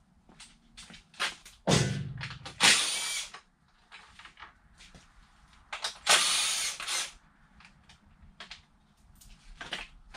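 A power tool runs in two short bursts of about a second each, a few seconds apart. Between them come scattered clicks and knocks of tools and parts being handled.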